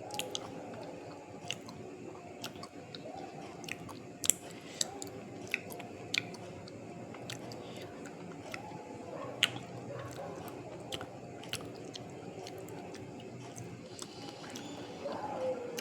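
Close-up biting and chewing of hard, crunchy white broken pieces: a steady wet chewing sound broken by sharp, irregular crunches, the loudest about four and nine seconds in. The eater calls the pieces very crunchy and a little hard.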